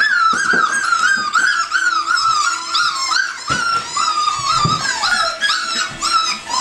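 A litter of young Labrador Retriever puppies whining and yelping, high wavering cries overlapping almost without a break, with a few soft knocks from the pups moving about.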